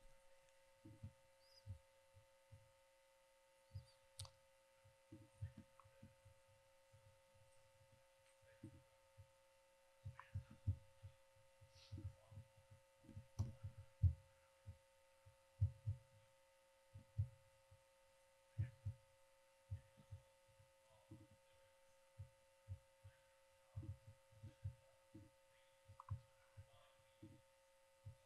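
Faint, muffled low thumps at an uneven pace over a steady electrical hum.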